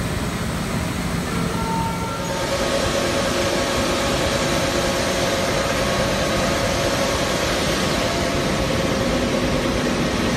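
High-speed paper rewinder running at about 1500 metres a minute: a loud, steady mechanical rush with a steady hum tone. About two seconds in, the sound becomes brighter and fuller.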